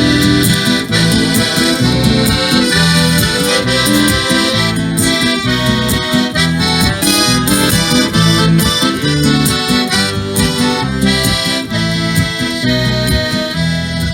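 Live band playing an instrumental break between sung verses of a song: a held, sustained melody line over a rhythmic bass and chord accompaniment, with no singing.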